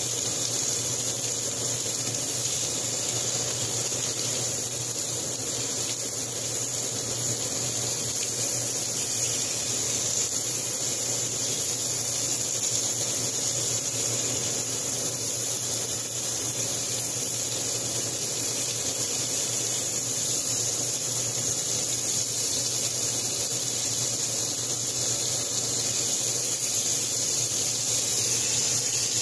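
Lamb pieces searing in a cast-iron skillet: a steady high sizzle, with a low hum underneath.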